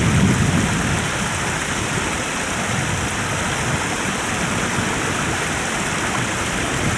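Water rushing steadily over a low concrete weir, an even hiss without a break.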